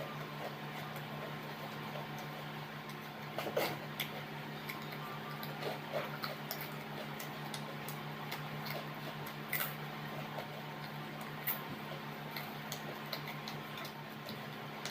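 Close-up eating sounds: irregular wet smacks and clicks of chewing and mouth noises, over a steady low hum.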